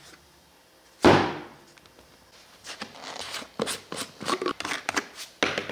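A thunk as a plastic bottle is set down on a workbench, then a run of light clicks and taps as the black screw lid of a small plastic jar is handled, ending in another knock.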